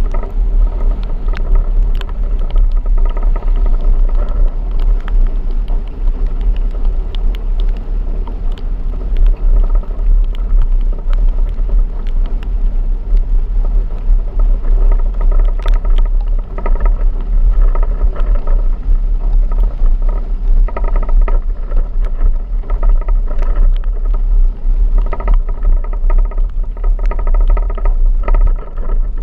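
Vehicle driving in a rainstorm: a heavy, steady low rumble of engine and road noise, with many sharp ticks scattered through it.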